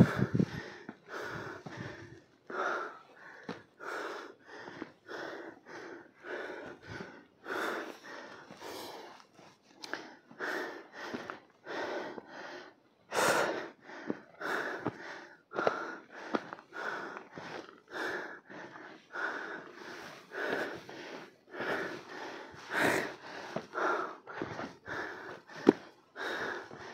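A hiker breathing hard and panting, quick in-and-out breaths in a steady rhythm, out of breath from the exertion of the trail.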